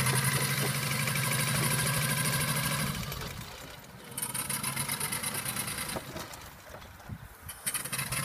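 Miniature steam engine of a home-built Hornsby chain-crawler model running with rapid, rhythmic exhaust beats and a steam hiss. It runs hard for about three seconds, eases off, picks up again from about four to six seconds, and briefly once more near the end.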